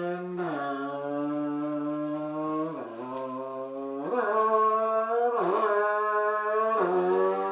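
A man imitating a revving Honda Civic engine with his voice: a held buzzing note that drops in pitch in steps, then jumps higher about four seconds in and dips and climbs again, like gear changes.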